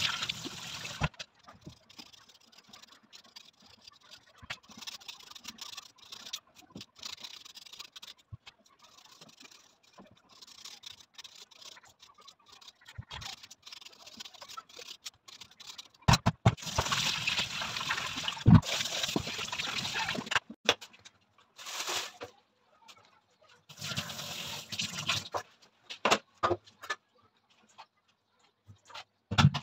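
Tap water running into a steel colander of boiled potatoes, stopping after about a second, followed by faint small sounds of hand-peeling. Later come two longer stretches of running, splashing water with sharp clicks and clatter, and a couple of knocks near the end.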